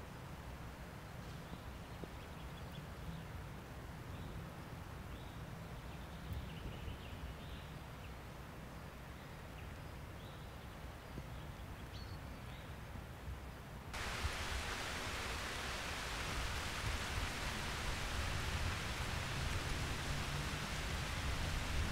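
Outdoor ambience: a low wind rumble on the microphone with faint, scattered birdsong. About fourteen seconds in, it changes abruptly to a steady, even hiss of rain.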